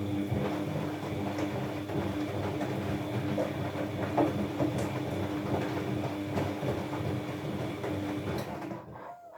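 Washing machine running with its drum turning, making a steady squealing, scraping noise over a rough rattle that cuts off near the end. The owner suspects the drum bearing or its bearing washer.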